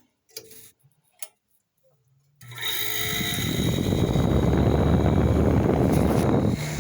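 Vintage Mitchell dehumidifier's compressor starting up about two and a half seconds in, with its fan: a steady low hum and rushing air that swells over a second and then holds. A few light knocks come before it.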